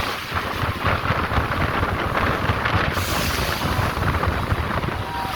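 Wind buffeting the microphone on a speedboat under way: a loud, steady rumbling rush mixed with the noise of the boat and water.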